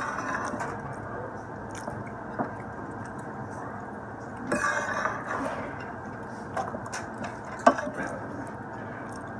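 A metal fork scraping and clicking against a plate while someone eats, with chewing. A sharp click right at the start, a louder scraping stretch about halfway through, and a few single clicks later.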